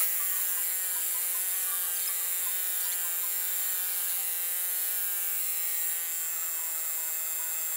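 Pneumatic impact wrench running continuously under load as it drives a sleeve installer, pressing a cylinder repair sleeve into an engine block: a steady high-pitched whine with many overtones. The tight press fit makes the sleeve hard to push in, and the wrench is short of air supply.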